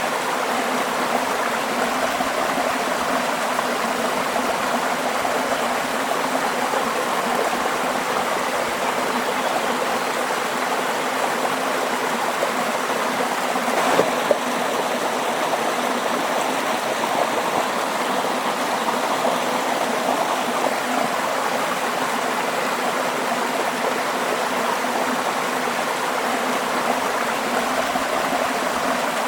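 Stream water flowing and babbling steadily, with a brief sharp tick about halfway through.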